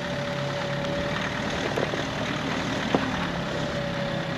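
Mahindra Thar engine running steadily at low revs as the 4x4 crawls slowly across rough grass. There is one sharp click about three seconds in.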